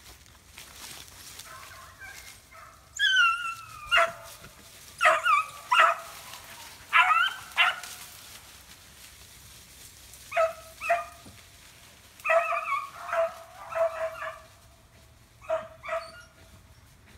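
Hunting dogs barking on a run in the brush: about a dozen short, high barks, often in pairs. The first, about three seconds in, is a longer cry that falls in pitch.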